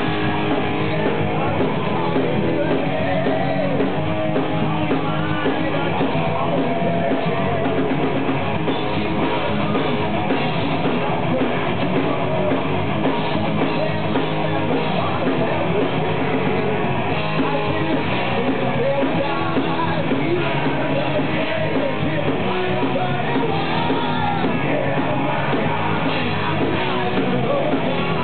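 Live hard rock band playing: electric guitars, bass and drums with a singer's vocal over them, loud and steady throughout.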